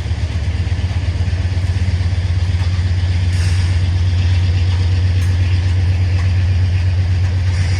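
CSX freight train's diesel locomotives running with a steady, loud low engine rumble.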